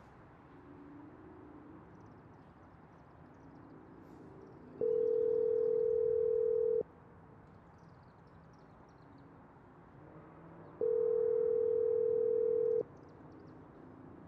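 Telephone ringback tone through a phone earpiece: two steady rings, each about two seconds long with about four seconds between them, as an outgoing call rings unanswered.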